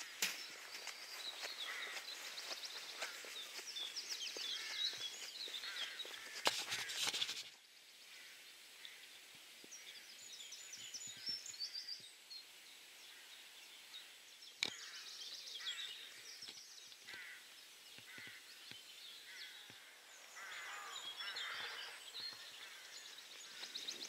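Birds singing and calling in open country, several short chirping phrases overlapping, with a few sharp knocks in the first seconds. The background drops suddenly about seven seconds in.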